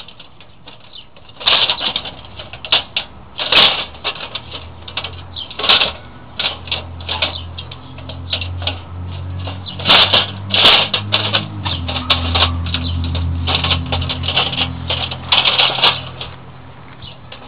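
Squirrel trapped in a galvanised wire live trap, scrabbling and rattling against the mesh in quick irregular bursts of clatter and sharp clicks that begin about a second and a half in. A low steady hum runs underneath through most of it.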